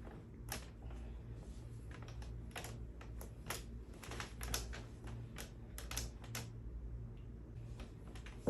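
Irregular light clicks and taps, in small clusters, over a low steady hum.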